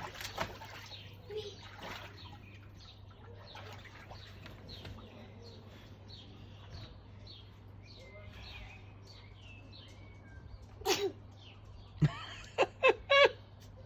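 A toddler sneezes once, sharply, about eleven seconds in, followed by four quick, loud bursts of the child's voice. Faint splashing of water runs underneath.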